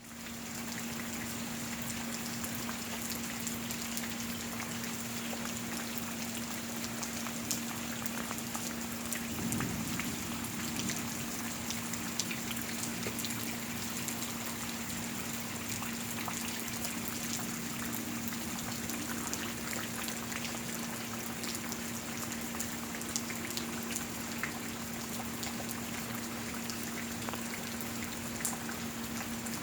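Steady rain falling, with many individual drops striking close by. A steady low hum runs underneath, and there is a brief low swell about nine seconds in.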